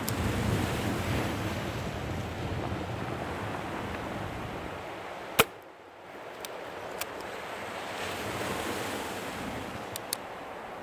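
A .22 Webley Hurricane spring-piston air pistol firing once, a single sharp crack about halfway through, over steady surf and wind noise. A few faint clicks follow.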